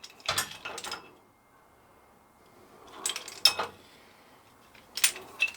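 Steel locking pliers clinking against a slotted steel box-section rack: light metal clicks and rattles about half a second in, again around three seconds in, and near the end.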